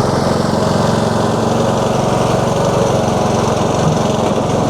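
Husqvarna TS142 riding lawn mower's engine running steadily under load as the mower drives through thick, swampy mud on ATV tires.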